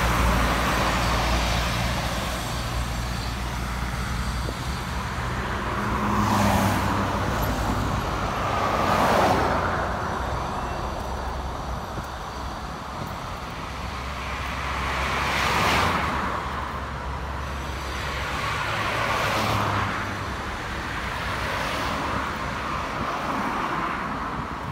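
Street traffic: about four vehicles pass one after another, each swelling and fading, over a low, steady engine hum that dies away about three quarters of the way through.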